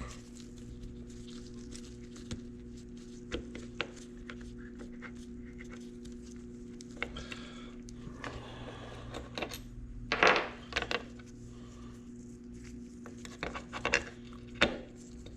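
Metal engine parts clicking and clinking as a shift selector is worked into position on a motorcycle engine's clutch side, with a louder clatter about ten seconds in and again near the end, over a steady low hum.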